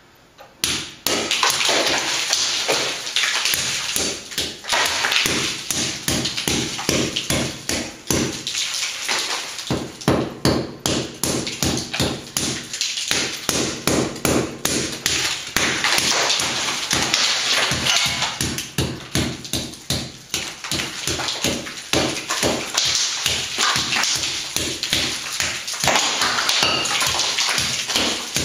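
A hammer tapping rapidly and repeatedly overhead on a cement slab ceiling, chipping at the bare patch of plaster and concrete, several sharp knocks a second, starting about half a second in.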